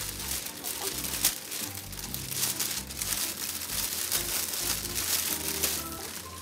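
Clear cellophane gift wrap crinkling and rustling in quick irregular crackles as it is bunched up around a gift basket, over background music.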